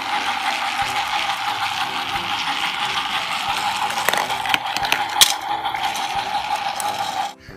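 Motorized Thomas TrackMaster toy train running along plastic track: a steady, high motor whine with a mechanical rattle. A few sharp clicks come between four and five seconds in, as a plastic ball rolls down a spiral chute. The sound cuts off suddenly near the end.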